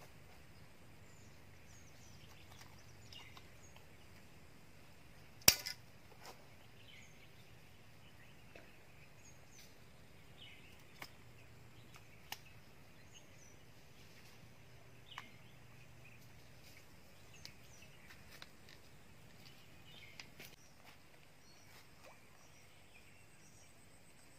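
Quiet open-air ambience by the water, with faint short bird chirps scattered throughout. One sharp click about five seconds in is the loudest sound, and a few much smaller clicks and ticks come through the rest.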